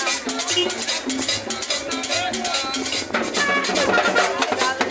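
Live Latin dance music from a street combo: timbales, congas and cowbell keep a fast, dense rhythm under the band's melody.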